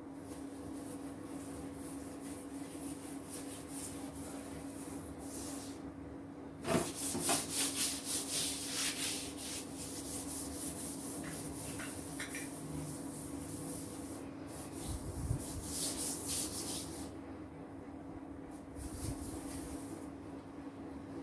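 A stiff brush scrubbing a hard kitchen surface in quick back-and-forth strokes, loudest and busiest through the middle stretch and lighter near the start and end. A steady low hum runs underneath.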